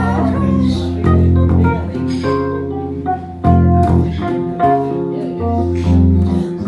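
Instrumental passage of a bass-and-keyboard duo: electric bass guitar playing a line of low notes under held keyboard chords, with no singing.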